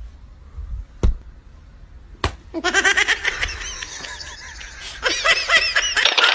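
Three sharp taps about a second apart. Then, from about two and a half seconds in until near the end, high-pitched giggling laughter in repeated bursts.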